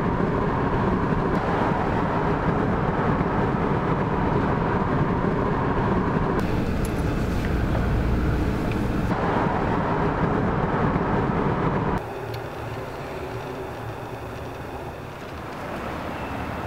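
Steady road and wind noise inside a van's cabin while driving at speed. It drops to a quieter cabin rumble about twelve seconds in.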